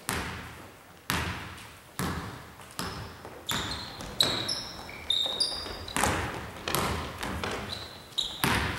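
Basketball bouncing on a hardwood gym floor, roughly once a second, each bounce echoing in the hall. Short sneaker squeaks on the court in the middle and near the end.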